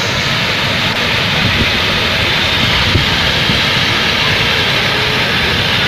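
Muddy floodwater rushing in a steady torrent, pouring down between the sleepers through the washed-out ballast beneath a railway track.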